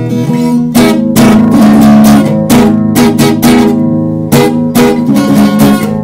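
Guitar strumming chords, each stroke ringing on into the next, in an instrumental stretch of a song between sung lines.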